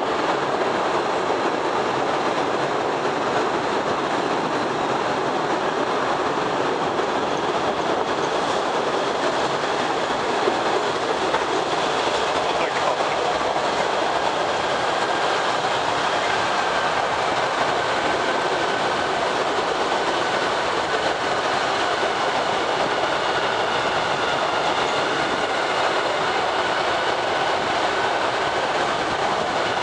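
Postojna Cave's tourist mini-train running steadily through the cave, heard from aboard: a continuous rumble and clatter of wheels on rails. A faint high whine joins in during the second half.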